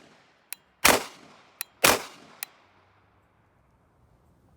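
Cobray M-11/9 9mm pistol firing two single shots about a second apart, each crack followed by a brief fading echo and a small sharp tick.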